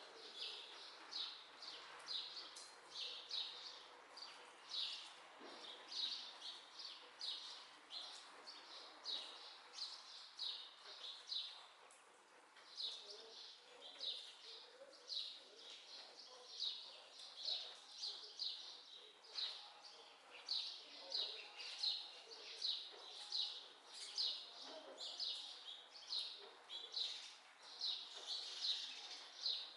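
A bird chirping over and over, high short chirps about twice a second, with a brief pause about twelve seconds in.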